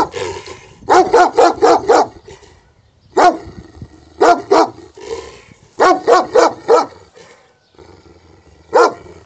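Dog barking loudly in short runs: a quick run of five barks about a second in, then a single bark, a pair, a run of four, and one last bark near the end.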